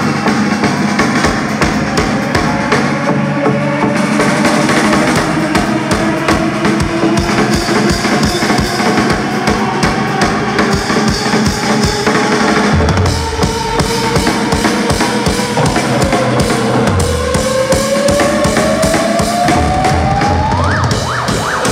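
Loud live electronic dance music played by a band with a drum kit, the drums beating fast like a build-up roll. A synth tone sweeps up in pitch over the last few seconds.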